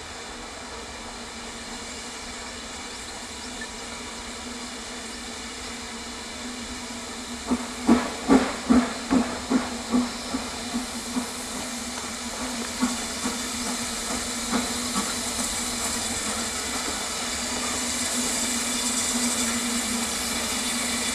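Steam tank locomotive hauling a train of coaches, with a steady hiss of steam. About a third of the way in comes a run of sharp exhaust chuffs, about three a second, which then thin out into scattered beats. Near the end the hiss grows louder as the engine comes closer.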